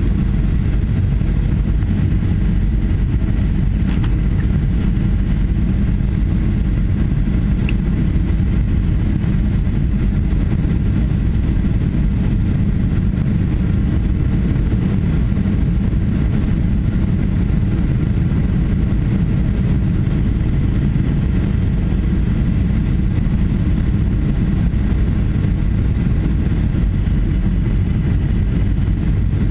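Steady low rumble inside a Boeing 737-800's passenger cabin: the CFM56 turbofan engines and the airflow past the fuselage, heard from a window seat.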